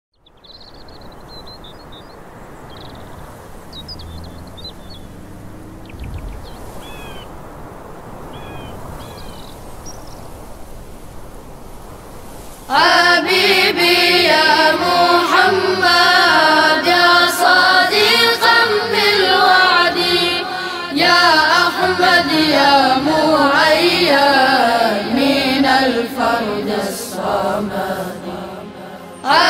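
Faint hiss with scattered small high chirps, then about 13 seconds in a group of voices suddenly starts singing an Arabic tawashih, a chant in praise of the Prophet, loud and melismatic, with a brief dip near the end.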